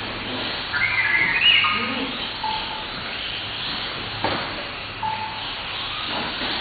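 1/18-scale electric RC cars racing: a steady hiss of small motors and tyres, with short high whines from the motors. A sharp knock about four seconds in, a car hitting the track barrier or being handled.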